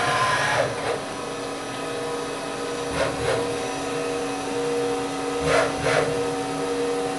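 1991 Bridgeport Interact 412X CNC vertical machining center running a drill/tap program with no workpiece. There is a steady hum from the machine, and short whirs from its drives as it moves: at the start, about three seconds in, and twice close together near the end.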